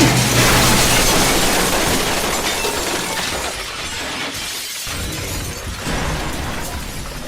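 A loud, noisy crash-like wash that slowly dies away over several seconds.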